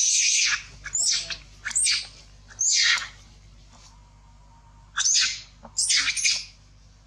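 A young long-tailed macaque screaming: about six shrill, high screams, each falling in pitch, in two runs with a pause of about two seconds between them.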